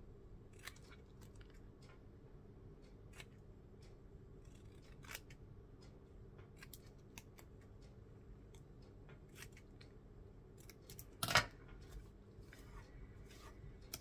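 Small craft scissors snipping paper, a scatter of short, sharp snips as the excess is trimmed from around a small paper label, with one louder clack late on.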